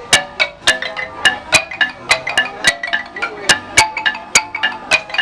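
Marimba played with mallets: a lively run of quick struck notes, each ringing briefly, with stronger accented strokes several times a second.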